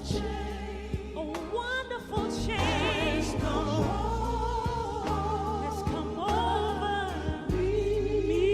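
Gospel song: a singer holding long notes with vibrato over band backing with a steady bass line and regular drum hits.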